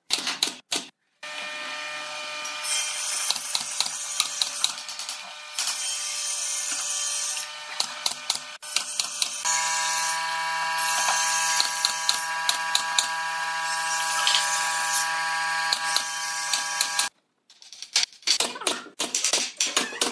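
Cordless drill running in long, steady whines as it drives screws into pine boards, its pitch shifting about halfway through, with sharp clicks and knocks of the wood over it. Near the end the drill stops and light taps follow.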